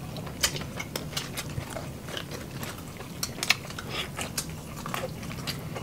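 Close-miked eating: several people chewing and biting into roast beef and boiled seafood by hand, giving scattered wet smacks, clicks and crunches at an irregular pace, over a faint low steady hum.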